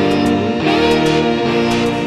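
Instrumental background music: held notes with a few pitch slides over light, regular ticking percussion.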